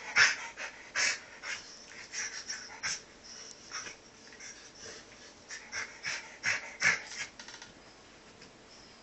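A dog rolling and wriggling on its back on a bed, panting and snuffling in short, irregular bursts while its body rubs against the bedding.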